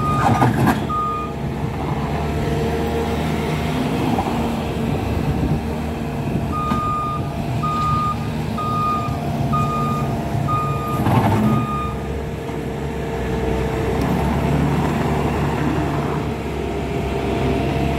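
Bobcat S550 skid steer's diesel engine running steadily, its revs rising and falling a little. Its reversing alarm beeps about once a second, briefly at the start and again in a run of six beeps from about six to twelve seconds in. A loud clatter comes near the start and another about two-thirds of the way through.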